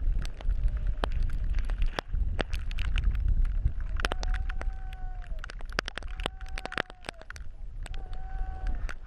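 Wind buffeting a helmet-camera microphone, with many sharp clicks and knocks, as skis and poles shift at the top of a snowy slope. Three steady high tones of about a second each sound in the second half.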